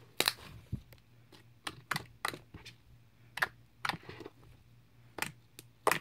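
Purple glitter slime being poked and squeezed by fingers, giving about ten irregular sharp clicks and pops as air pockets burst.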